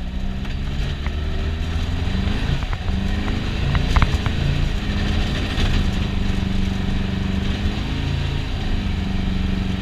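Air-cooled VW Beetle flat-four engine, heard from inside the cabin, revving up and down as the car is driven hard through the gears. There are a few sharp knocks about four seconds in.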